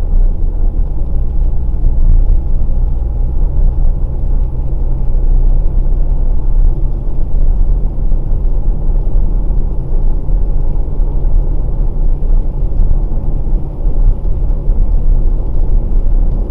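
2020 Volkswagen Passat Variant 1.6 TDI four-cylinder diesel cruising at steady speed: a continuous low rumble of engine, tyre and road noise heard from inside the cabin.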